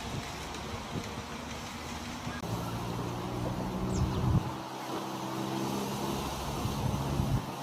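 Steady background traffic noise, with a motor vehicle's engine hum setting in a couple of seconds in and holding steady, plus a few soft knocks.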